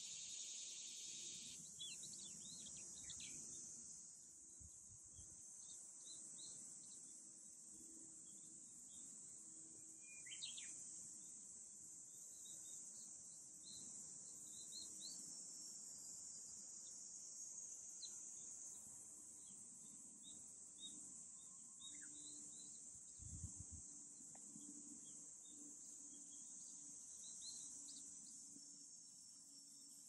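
Faint summer cicada drone, one steady high-pitched buzz, with a second pulsing insect call that stops about a second and a half in. Small birds chirp sparsely throughout, with one louder call about ten seconds in, and a brief low thud comes about two-thirds of the way through.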